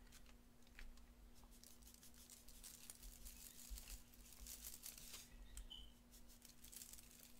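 Faint rustling and light pattering as magnetic sand is sprinkled from a small packet onto a candle standing in dry herbs on a foil-lined plate, over a low steady hum.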